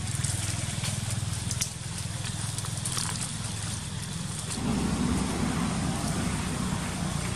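A low, steady rumble of a motor vehicle engine running, getting louder and rougher about four and a half seconds in.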